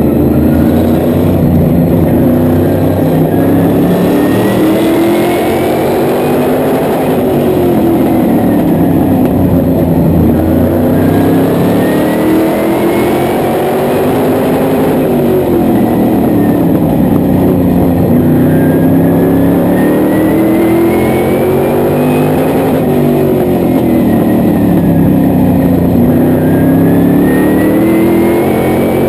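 Modified race car's engine heard from inside the cockpit, running continuously while lapping under caution. The revs rise and fall in a slow repeating cycle, about every seven to eight seconds, with a faint higher whine climbing with each rise.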